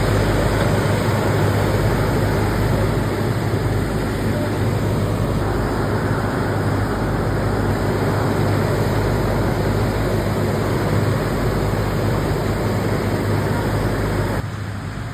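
A moving train running: a steady rumbling noise over a low hum, which cuts off suddenly near the end.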